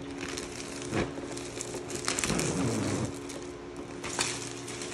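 Blue plastic protective film being peeled and pulled off the face of an acrylic print, the plastic crinkling, with a few sharp crackles as it comes away.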